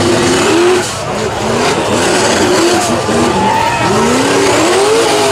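Lifted mud truck's engine revving hard under load as it climbs out of a mud pit, its pitch rising and falling again and again.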